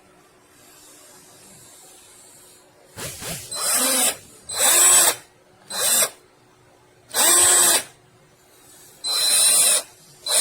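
Motor of a BLACK+DECKER 12V MAX cordless drill/driver (BDCDD12C), run free with an empty chuck in about six short trigger pulls. Each whine spins up and winds down within about half a second to a second.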